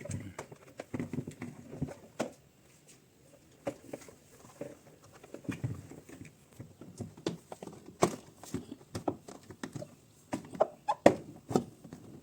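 Irregular light clicks, taps and knocks from hands working on refrigerator parts, with the loudest knocks about eight and eleven seconds in.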